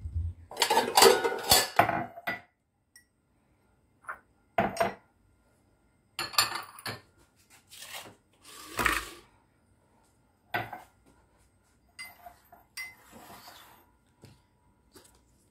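Glass tumblers and kitchenware set down and shifted on a stone countertop, making clinks and knocks. A quick cluster of them comes in the first two seconds, then single ones or short groups every second or two.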